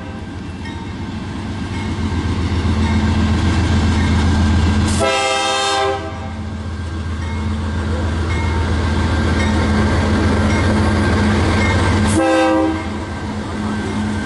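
CSX diesel freight train passing close by, its locomotive engine rumbling and growing louder. Its air horn sounds twice: a blast of about a second about five seconds in, and a shorter one about twelve seconds in.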